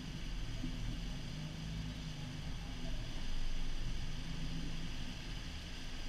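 Off-road vehicle's engine running at low revs with a steady low rumble as the vehicle crawls slowly up a rocky waterfall trail.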